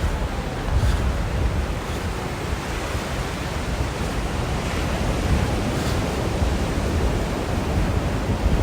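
Ocean surf washing on the beach, with wind rumbling on the microphone.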